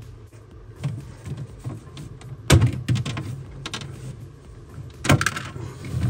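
Clips on the ice maker box of a Sub-Zero 245RFD refrigerator being worked loose, with handling rustle and sharp clicks and knocks, the loudest about two and a half seconds in and again near the end.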